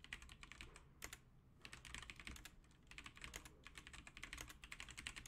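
Faint typing on a computer keyboard: quick runs of keystrokes in bursts, with short pauses between them.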